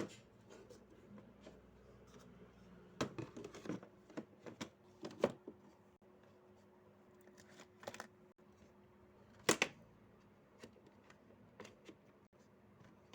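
Fidget toys being handled and put into a storage bin: scattered light clicks and knocks, with a cluster a few seconds in and one louder knock near ten seconds.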